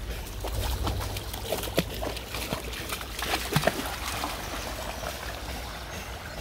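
A dog splashing through a shallow stream over running, trickling water, with a handful of sharp splashes between about two and four seconds in.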